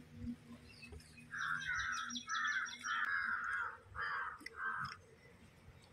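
Crow cawing: a run of about five harsh calls in a row, each under half a second.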